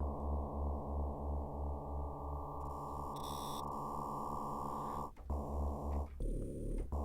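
Arturia Synclavier V software synthesizer holding a long low note at reduced bit depth, its lowest part pulsing about three times a second, then two shorter notes about five and six seconds in. The quantization distortion from the bit reduction adds gritty extra harmonics, giving a lo-fi 1980s digital character.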